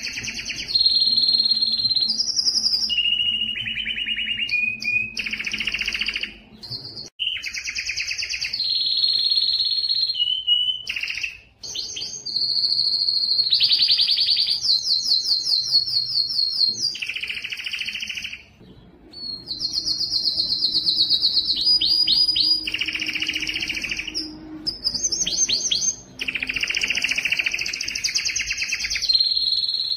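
Male domestic canary singing hard in breeding condition: a continuous run of fast, rolling trills and rapid repeated-note phrases, high-pitched, with only brief pauses between phrases.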